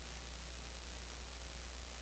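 Steady hiss with a low, even hum: background noise from the sound feed, with no speech.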